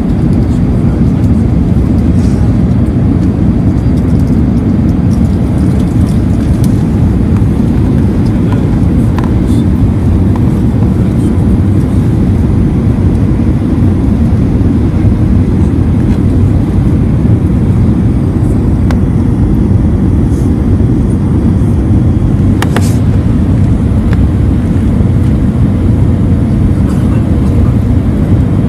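Steady rumble of jet engines and airflow heard inside the cabin of an Airbus A320 descending on approach. One brief click comes late on.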